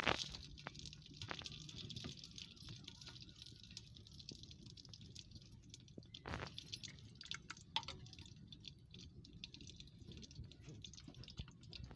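Ghee heating in a pot on a wood-fired clay stove: faint scattered crackles and ticks over a low steady rumble, with a sharper crack about six seconds in.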